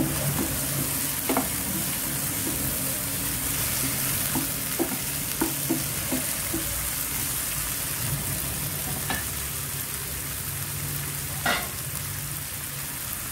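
Chopped tomatoes and onions sizzling in hot oil in a non-stick pan while a wooden spatula stirs them, with a scatter of short taps and scrapes of the spatula against the pan and one louder tap near the end.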